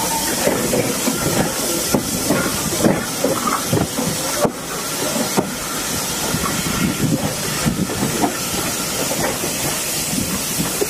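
Steam locomotive hauling a passenger carriage at low speed, heard from the carriage: a steady hiss of steam with irregular knocks and clatter from the wheels over rail joints and points.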